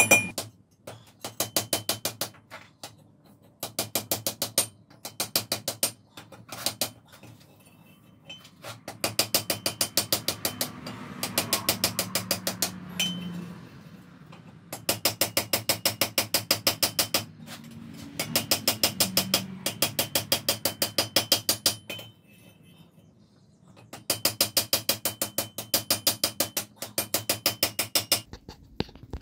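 Blacksmith's hammer striking hot wrought iron on an anvil in quick runs of blows, each blow ringing, with short pauses between the runs.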